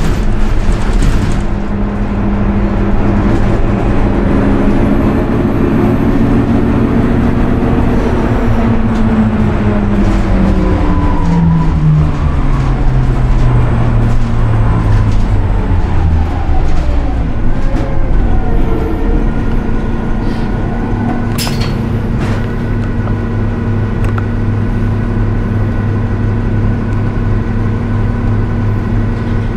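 A 2018 Nova Bus LFS natural-gas bus with a Cummins ISL-G engine, heard from inside the cabin: a low pitched hum that falls steadily in pitch over about ten seconds, then settles into a steady idle hum. There is a single sharp click a little past the middle.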